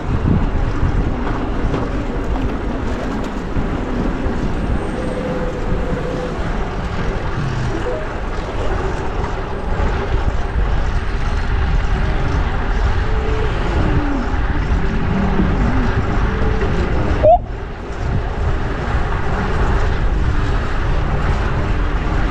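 Wind noise on a bike-mounted action camera's microphone while riding through city traffic, with vehicles passing. About three-quarters of the way through there is one short, loud, sharp sound, and the level dips briefly just after it.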